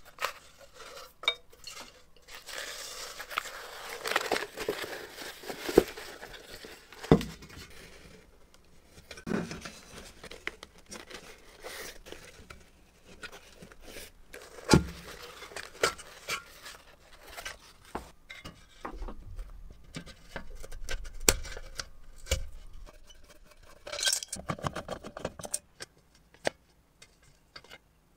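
Hands taking apart an old metal firefighter's helmet: scattered clicks and clinks of tools and small metal parts against the shell, with stretches of rubbing and scraping as the leather liner and strap are worked loose.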